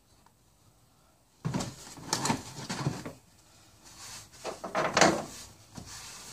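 Motor oil glugging out of a 5-quart jug into the engine's oil filler opening, in two irregular pours, the second a little louder.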